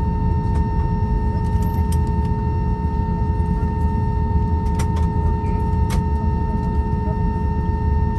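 Cabin noise of an Airbus A321-231 on the ground, its IAE V2500 engines idling: a steady low rumble with a steady whine above it, and a couple of light clicks about five and six seconds in.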